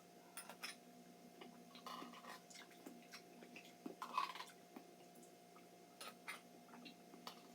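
Faint chewing of soft canned pears, with scattered small mouth clicks and smacks.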